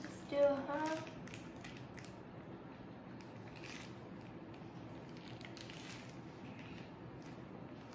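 A voice speaks briefly about half a second in. After that, a plastic piping bag crinkles faintly in short crackles now and then as it is squeezed to pipe chocolate, over a low steady hiss.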